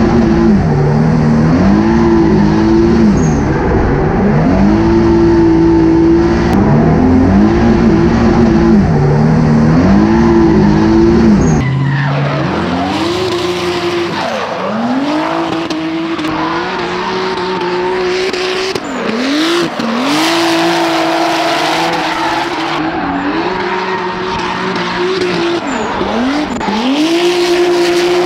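Twin-turbo 3.8 V6 swapped from a Genesis Coupe into an Infiniti G35 coupe drift car, run hard through a drift. The revs repeatedly drop and climb back up to a high, held pitch, over the squeal and scrub of spinning rear tyres.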